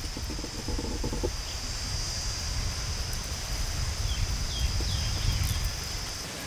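Stone roller grinding wet masala paste on a flat stone grinding slab: a low, uneven rumble of stone working over stone. A steady high insect drone runs underneath, and a bird chirps a few times about four to five seconds in.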